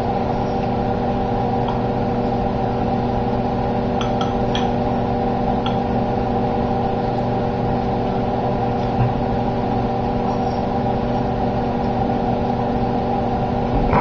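Microwave oven running with a steady hum, heating a whole egg; a few faint ticks about four and six seconds in.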